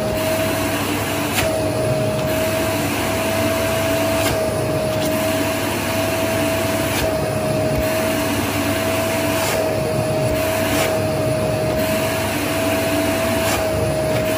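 Household vacuum cleaner running with a steady whine over a rushing noise, its suction drawn along the skin of the leg as a massage. There are faint brief changes every second or two.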